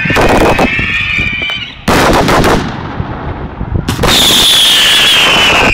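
Fireworks being fired at very close range: a dense run of loud bangs and crackling, with sudden heavy blasts about two seconds in and again about four seconds in, and high falling whistles.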